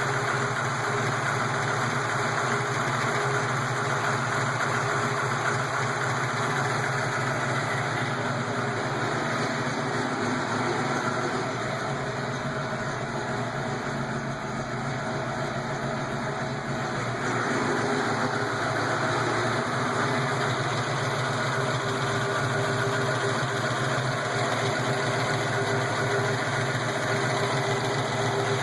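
331 cubic-inch V8 idling steadily, with the lifter noise that is being checked as the engine warms toward operating temperature. It runs a little quieter for a few seconds midway.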